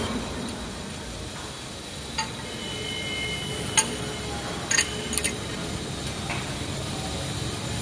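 Steady workshop machine noise with a handful of short, sharp metallic clinks, about five of them, between two and five and a half seconds in.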